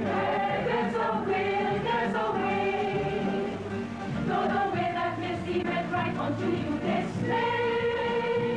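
Opening theme music: a choir singing long held notes over a steady bass.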